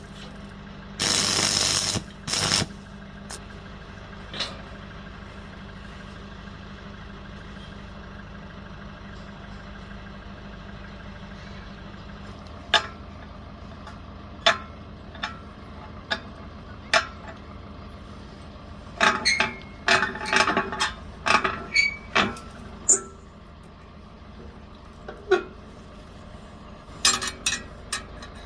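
A short hissing burst about a second in, then a steady low hum under scattered sharp metallic clanks and taps, clustered about two-thirds of the way through, as steel pieces are handled and struck in a welding shop.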